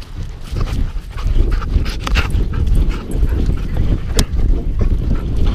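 Great Dane panting and moving close up to a GoPro strapped on its body, with steady rubbing rumble and knocks from the camera mount; one sharp knock about four seconds in.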